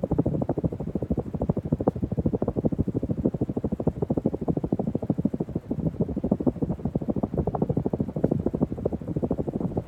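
Hunter Low Profile II ceiling fan running, its airflow buffeting the microphone in a rapid, rumbling flutter of pulses.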